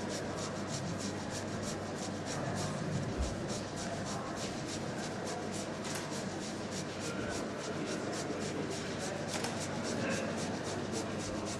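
Raw potatoes being grated by hand on a metal grater: a steady run of quick, even scraping strokes.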